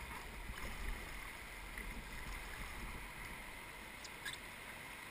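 Steady rush of river water around an inflatable whitewater raft moving toward a rapid, with a couple of faint clicks about four seconds in.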